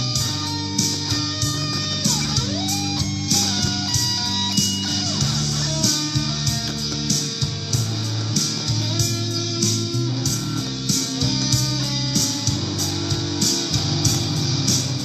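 2005 Gibson Les Paul Supreme electric guitar playing a lead melody with slides and bends, over a backing track with a steady drum beat and bass.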